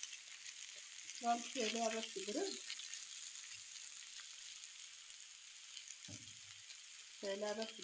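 Grated vegetables and diced chicken breast frying in oil in a pan with a steady sizzle, stirred with a silicone spatula.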